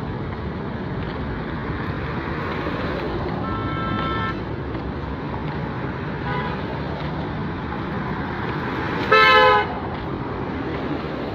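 Road traffic passing steadily, with vehicle horns honking: a held horn about three and a half seconds in, a faint one around six seconds, and a short, loud blast about nine seconds in.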